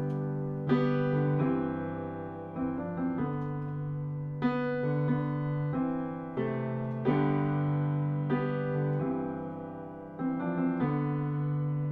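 Background music: slow piano chords, each struck and left to ring away before the next.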